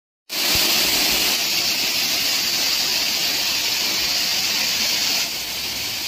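Waterfall cascading down a rock face, a steady rush of falling, splashing water; it dips slightly in level about five seconds in.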